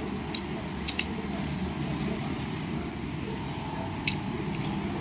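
Robocar Poli plastic transforming toy being folded by hand from robot into car: a few sharp clicks of plastic parts snapping into place, the loudest about four seconds in, over a steady low background hum.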